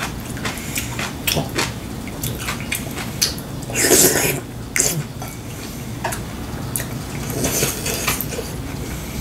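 Someone eating soup: a wooden spoon and chopsticks clicking against ceramic bowls, a loud slurp of broth from the spoon about four seconds in, and a second, softer slurp near the end.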